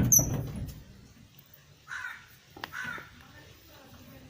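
A crow cawing, two harsh caws about a second apart near the middle, after a loud low burst of noise at the start.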